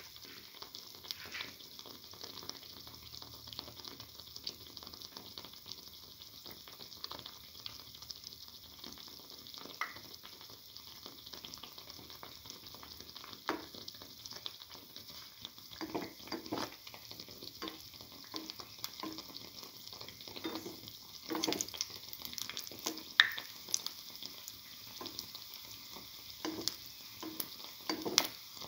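A banana-egg batter fritter frying in shallow oil: the oil sizzles steadily with frequent small pops and crackles. From about halfway in, sharper taps and scrapes join in as a perforated steel spatula works the fritter in the pan.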